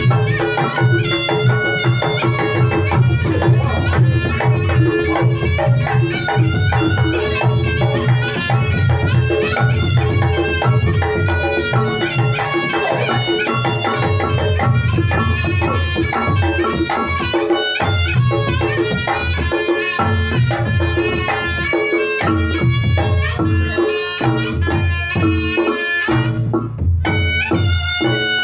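Reog Ponorogo gamelan music played live: kendang drums beating a busy pattern under a winding reed-pipe melody, with steady held gong-chime tones beneath.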